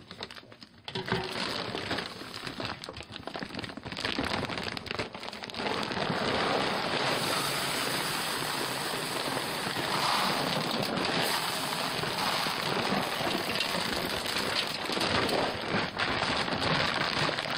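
Dried corn kernels pouring into a plastic bucket of chicken feed, a dense, steady rain-like patter of grains. It starts about a second in and grows fuller about six seconds in.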